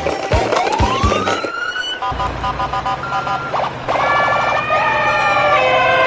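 Siren-like electronic sound effect: a tone sweeps upward in a rising whoop, then gives way to rapid repeating beeps and a wavering warble of tones.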